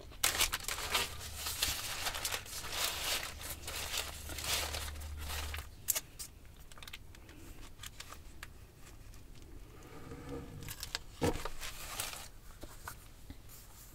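Paper liner of a refrigerated pie crust crinkling and rustling as the dough is unrolled and handled, busiest in the first half and sparser after, with one sharp knock near the end.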